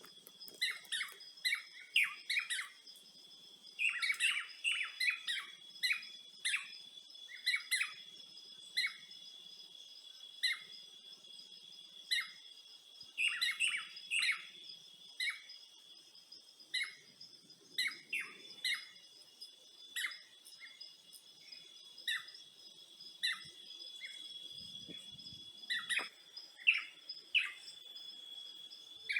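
Small birds chirping in short, quick calls, bunched in flurries at times, over a steady high-pitched drone of insects.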